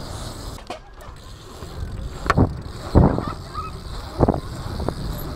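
Wind rushing over a bike-mounted camera's microphone and tyres rolling on an asphalt pumptrack, with three short knocks and thumps from the bike a couple of seconds in.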